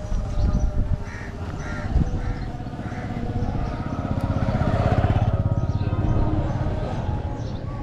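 A motor vehicle passes, getting louder to a peak about two-thirds through and then easing off. A few short bird calls come before it, about a second or two in.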